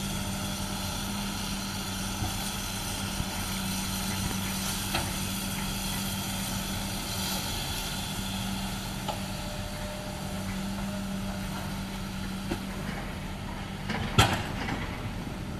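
Hydraulic excavator's diesel engine running steadily under load as the machine dumps, swings and digs, with a few light clicks. A single sharp knock near the end as the bucket digs into the pile of earth.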